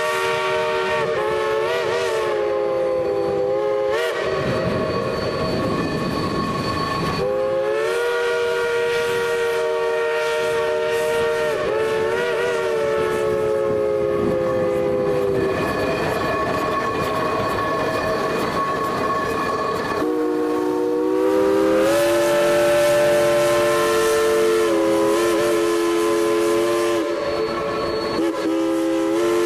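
Geared steam locomotive's chime whistle blowing a chord in long blasts, three times, each new blast sliding up to pitch. Between the blasts there is a hissing rush.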